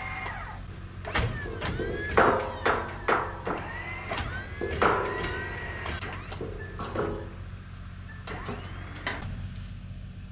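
An angle grinder working steel C-channel in a run of short, hard bites, its whine bending in pitch with each one, over the steady hum of an idling engine.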